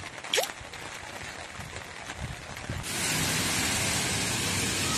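Steady hiss of heavy rain falling on a wet road, starting suddenly about three seconds in. Before it there is a quieter outdoor background with a short rising sound near the start.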